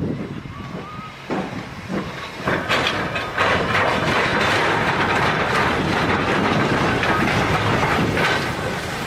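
A fast train passing: its rail noise builds about two and a half seconds in and then holds loud and steady.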